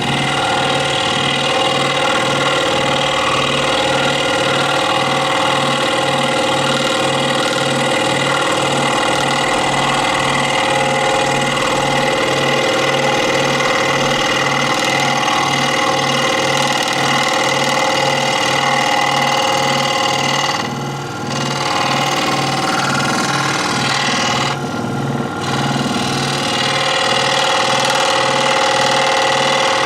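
Electric scroll saw running, its blade reciprocating through wood: a steady mechanical drone with a regular low pulsing. The sound thins briefly twice in the last third.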